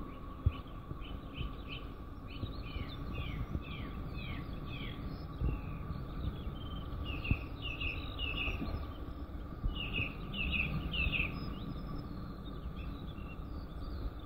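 Small birds chirping outdoors in quick runs of short, falling notes, over a low steady rumble and a faint steady hum.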